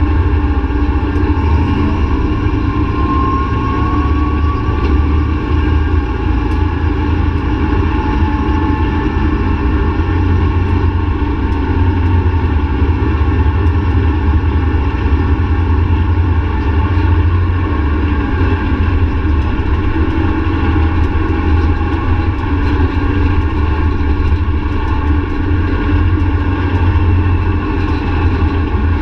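ATV engine running steadily at cruising speed, a constant low drone heard close up from the handlebars.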